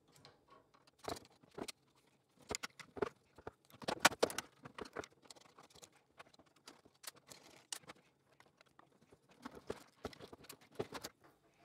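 Screwdriver and hands working at an electric hob's plastic terminal block, undoing the terminal screws and pulling the wires out: irregular clicks, taps and scrapes, the loudest about four seconds in.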